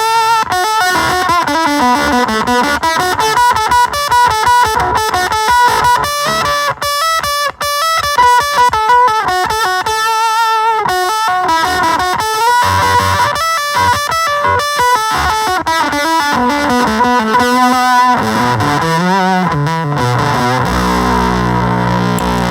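Electric guitar played through a Gremlin Machine Shop Avedissian octave fuzz pedal: distorted, warbling notes with pitch bends, and a low note held and ringing near the end.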